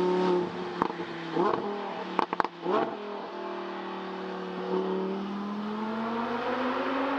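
Lamborghini Huracán Performante Spyder's naturally aspirated V10 running, with a couple of short rev blips and sharp pops about two seconds in. It then holds a steady note whose pitch rises slowly.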